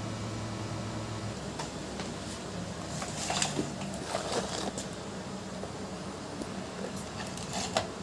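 Quiet handling noise: faint clicks and rustles of electrical cables and a plastic switch-and-socket box being moved about on a tiled floor, a cluster a few seconds in and another near the end, over a low steady hum that fades out after about a second.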